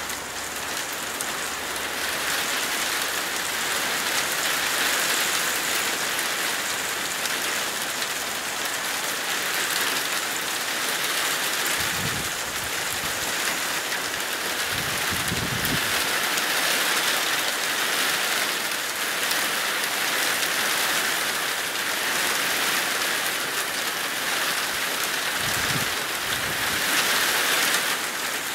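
Steady rain falling on roofs and ground, an even hiss, with a few brief low rumbles about twelve, fifteen and twenty-six seconds in.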